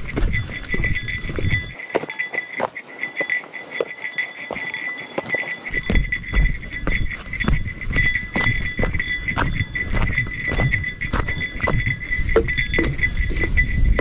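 A small bell jingling steadily with a walker's footsteps along a forest trail, each step adding a soft knock under the ringing. From about six seconds in, a low rumble of walking and handling noise runs under it.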